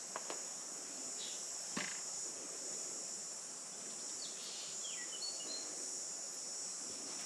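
Steady high-pitched insect chorus, with a few short bird chirps about four to five seconds in and a couple of faint clicks in the first two seconds.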